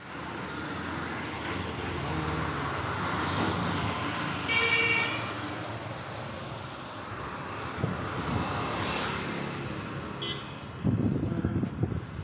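Steady road traffic noise with a vehicle horn honking once, briefly, about four and a half seconds in. Uneven low rumbling starts near the end.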